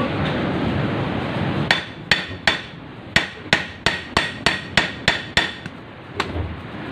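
A hand hammer tapping a stainless-steel rod, flattening it to form the barb of a handmade jig lure: about a dozen sharp strikes, roughly three a second. The strikes follow a second and a half of steady rustling noise.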